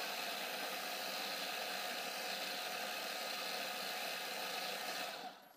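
Countertop food processor blending at speed 10, whirring steadily as it purées a cold avocado-and-cucumber cream with ice. It winds down and stops about five seconds in.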